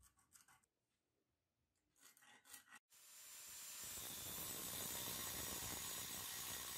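A few short pencil strokes scratching a mark on a rusty steel knife blank, then an angle grinder's cutting disc grinding through the steel, a steady harsh noise that builds over about a second and holds.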